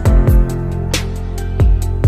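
Background music with a steady beat: bass, plucked and sustained instrument notes over a regular kick drum and hi-hat.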